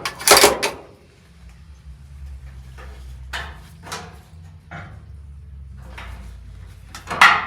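Metal parts clinking and knocking by hand as a fuel-tank sending unit and its gasket are fitted: a loud clatter at the start, scattered lighter clicks, then another loud clank near the end, over a low steady hum.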